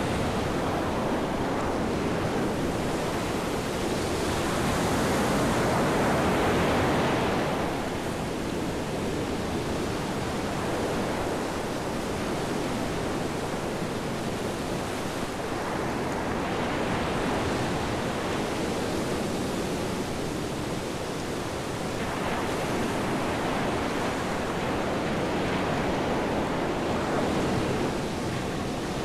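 Ocean surf breaking on a sandy beach: a steady rushing wash that swells and eases every several seconds as waves roll in.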